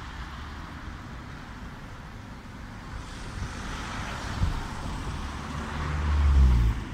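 Street traffic: a car passing on the road, its tyre and engine noise swelling and loudest shortly before the end, then dropping away suddenly.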